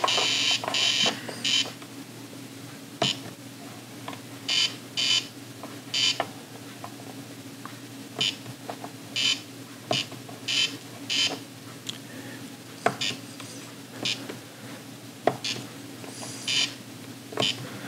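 Etch A Sketch Animator handheld drawing toy giving short, buzzy electronic beeps in irregular bursts as its knobs move the cursor to draw pixels, with a few sharp clicks between them. A low steady hum runs underneath.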